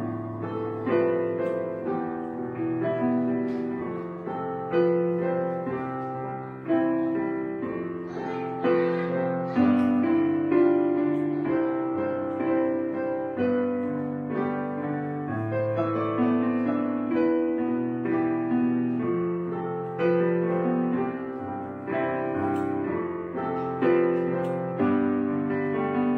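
Gentle background piano music, notes and chords struck and left to fade, playing on without a break.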